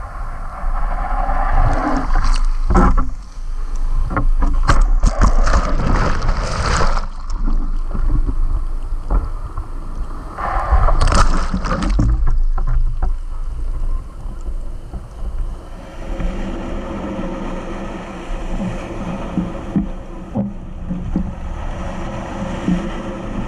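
Whitewater from breaking shorebreak washing and splashing over the nose of a surfboard, with deep wind rumble on the microphone. The loudest splashes come in the first twelve seconds or so, then the wash turns steadier.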